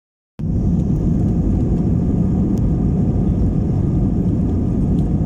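Cabin noise inside a Nepal Airlines Airbus A320 on the ground: a steady low drone of the jet engines and the rumble of the airframe rolling on the runway. It cuts in a moment after the start.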